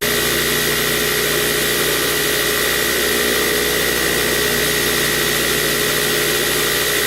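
A workshop power tool's electric motor running steadily, a constant rushing noise with a steady whine through it.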